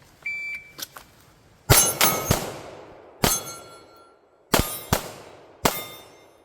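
A shot timer beeps once, then a pistol fires seven shots: three fast ones in a row, then a single, a quick pair and one more. Steel targets ring after several of the hits.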